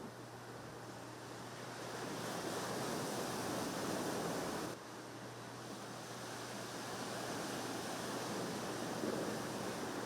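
Steady rushing noise of ocean surf and wind. It drops abruptly and shifts a little under halfway through, with a faint steady low hum underneath.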